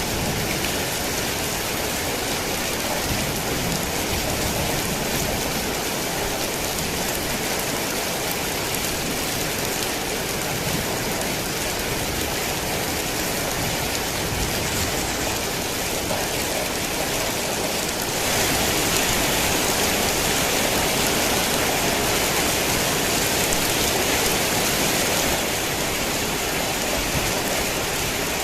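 Heavy rain falling steadily in a dense, even hiss. It grows a little louder for several seconds past the middle, then eases back near the end.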